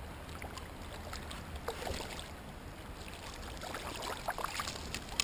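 Hooked chub splashing and thrashing at the water's surface as it is brought in and scooped into a landing net. The splashes are scattered at first, then come thicker and sharper in the second half.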